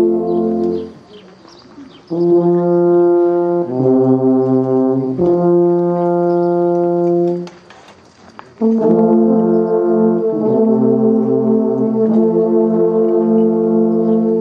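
An ensemble of alphorns playing in harmony, several horns holding long chords together. A phrase ends about a second in, then two longer phrases follow after short pauses, each moving through a few sustained chords.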